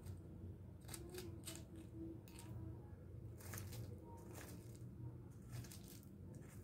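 Dry leaves and twigs rustling and crackling in short scratchy spurts, a dozen or so, as a female common blackbird hops and rummages through a leaf pile. A steady low hum sits underneath.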